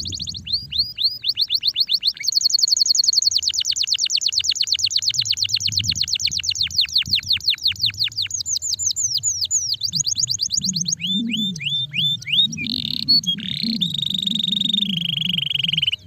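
Canary singing a long run of fast trills, about ten quick falling notes a second, changing the trill's note several times. Near the end it shifts to a held, steady whistle that drops a step in pitch.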